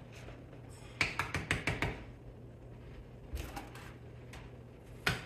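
Short runs of sharp clicks and scrapes, three times, from a small trowel scooping mortar out of a plastic bucket and working it into the joints of a brick floor.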